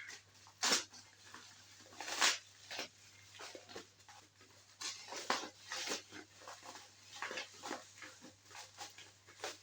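Parcel wrapping being torn open and unwrapped by hand: irregular crinkling and ripping in short bursts.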